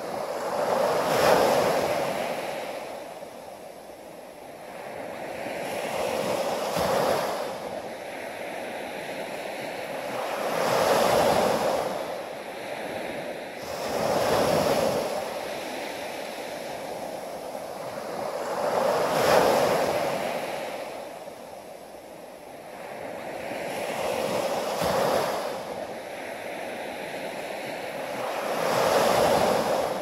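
Small surf breaking and washing up a sandy beach: about seven rushes of foam, one every four to five seconds, each swelling and then draining away.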